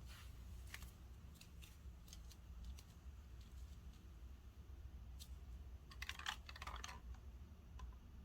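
Faint scattered clicks and taps over a low steady hum, with a quick run of clicks about six seconds in.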